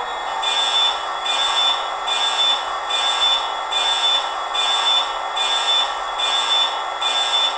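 Class 66 diesel fuel-primer sound effect from a Hornby HM7000 TXS sound decoder, played through the model's small speaker: a hissing pulse with a high tone, repeating about every 0.8 s, nine times. It sits over the decoder's steady Class 66 engine sound.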